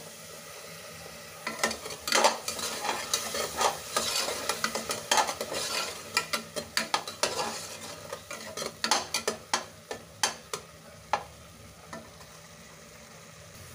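Spatula stirring and scraping a tomato-spice masala in a pressure cooker, over a sizzle as the spices fry in the oil. The scraping strokes come in quick runs from about a second and a half in until about eleven seconds, after which only the sizzle remains.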